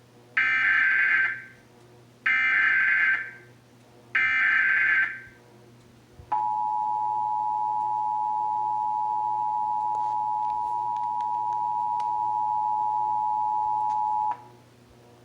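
Emergency Alert System broadcast tones: three bursts of SAME header data, each about a second long, followed about six seconds in by the two-tone attention signal, a steady pair of tones held for about eight seconds before it cuts off, marking the start of a required monthly test.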